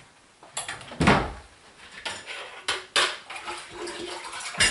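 Kitchen clatter from handling utensils and cupboards: a heavier thump about a second in, then several sharp clicks and knocks.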